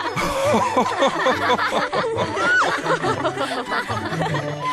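Several voices laughing and chuckling together over background music.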